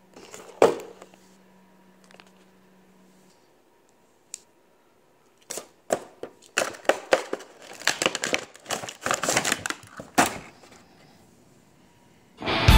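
A cardboard toy box being opened with a utility knife: a single thump near the start, then, about halfway through, a dense run of quick scratchy clicks and crackles as the knife slits the seal and the cardboard and plastic tray are handled.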